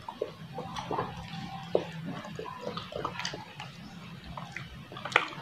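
Close-up wet eating sounds of ripe soursop pulp: lips smacking and mouth chewing soft, juicy flesh in many small irregular clicks, with one sharper click near the end.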